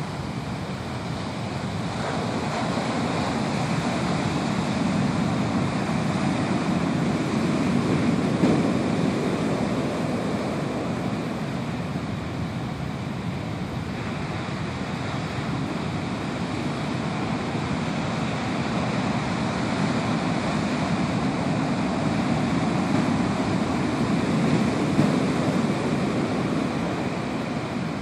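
Ocean surf: large waves breaking and foam washing up the sand, a continuous rush of noise that swells and eases in two long surges, loudest about eight seconds in and again near the end.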